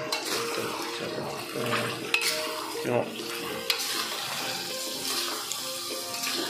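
Metal spatula stirring chicken pieces through simmering sauce in a wok: bubbling and sizzling, with a couple of sharp scrapes or clicks of the spatula against the pan. Faint background music runs underneath.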